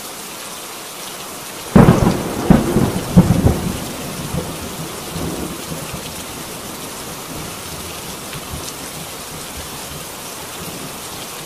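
Thunderstorm soundtrack of steady rain with a sudden loud thunderclap about two seconds in. A few more cracks follow over the next second and a half, then the thunder fades into a rumble under the continuing rain.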